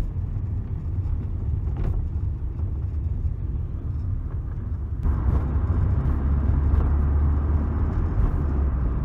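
Car cabin sound while riding in a taxi: steady low engine and road rumble with tyre noise, growing louder about five seconds in.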